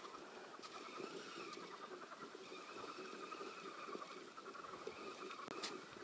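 Faint steady whirr of a spinning reel being cranked, with fine ticking, as a lure is retrieved.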